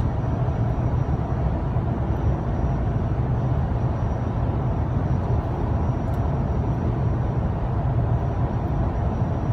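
Steady road and engine rumble of a car heard from inside its cabin while driving.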